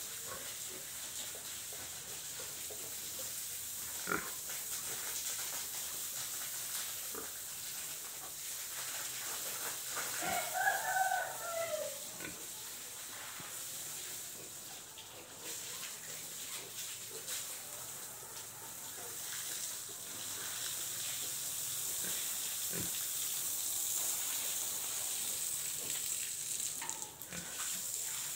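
Domestic pig moving about and nosing its concrete pen, with a few short, scattered snuffles and knocks over a steady high hiss. About ten seconds in, a rooster crows once, an arching call of about two seconds.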